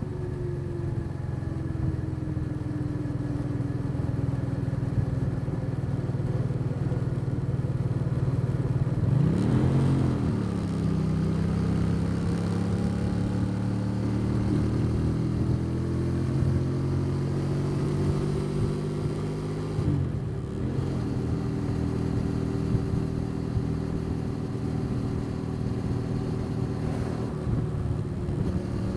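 Motorcycle engine running steadily while riding on the road. Its note falls early on, then breaks and climbs again about ten and twenty seconds in, as at gear changes.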